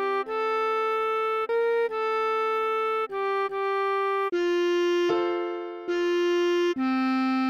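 Bass clarinet melody played back as a run of held, even notes that change about once a second, with a lower note held beneath part of it; one note fades away a little after the middle before the next begins.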